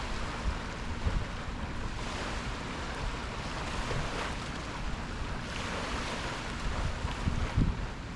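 Sea waves washing in a steady wash, with wind buffeting the microphone in low gusts.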